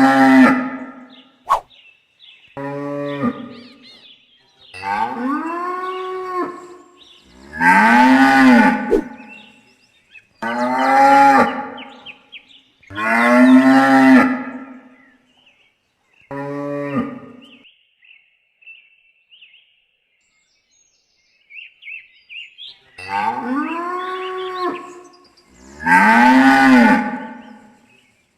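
Cattle mooing repeatedly: about nine long calls, each rising and then falling in pitch, a second or two apart. Past the middle there is a pause of several seconds with only faint high chirps.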